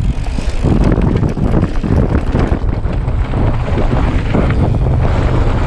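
Mountain bike ridden fast down a rough forest trail: a constant rush of wind on the camera microphone, with the bike rattling and clattering as its tyres run over rocks and roots.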